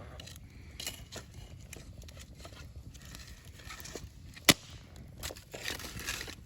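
Wood campfire crackling with scattered small snaps, and one sharp, loud pop about four and a half seconds in.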